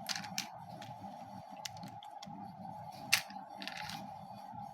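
Light plastic clicks and taps from a toy spinning top and its launcher being handled, with one sharper click about three seconds in and a short rustle after it, over a steady background hum.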